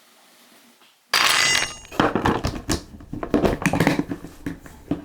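Kitchen clatter of bowls and food containers being knocked and handled. It starts suddenly about a second in, after a quiet start, and goes on as an irregular run of sharp knocks.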